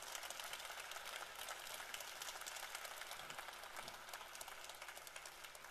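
Audience applauding: a dense, steady patter of many hands clapping that thins out and fades near the end.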